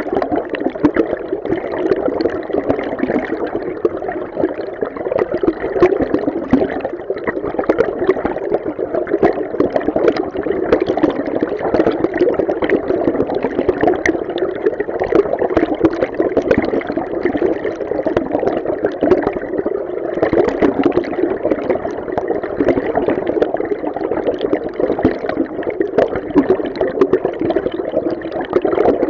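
River stream flowing, heard through an underwater hydrophone: a steady, muffled rush of water with constant fine crackling and bubbling.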